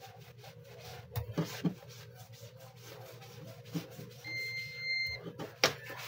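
A digital clamp meter's continuity buzzer sounds one steady high beep of about a second, about four seconds in, as its test probes touch a closed circuit. Around it, the probes and plug click as they are handled, with the sharpest click just after the beep.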